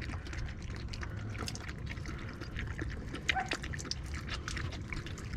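A dog lapping water: a quick, irregular run of small wet clicks and splashes.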